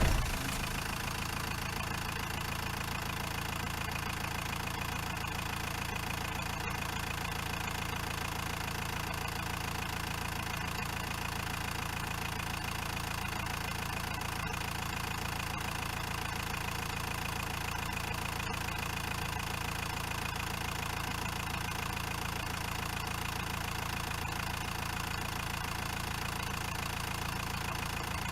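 Renault Master 2.8 dTi van's four-cylinder turbodiesel engine idling steadily just after catching, with a brief loud rise at the very start as it fires up.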